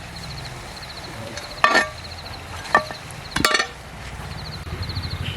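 Three sharp metallic clinks of cooking utensils, a second or so apart, over a low steady rumble that swells near the end. Insects chirp in short, regular trills throughout.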